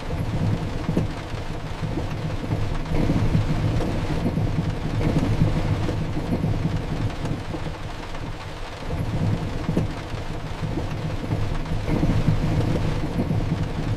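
Heavy rain with low rolling thunder that swells and fades several times over a steady low rumble.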